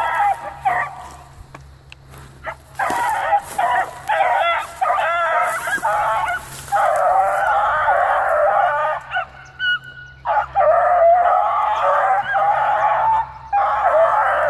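A pack of young hounds baying together in long, overlapping chorus as they give voice out in the brush. There is a short lull about two seconds in and another a little past the middle.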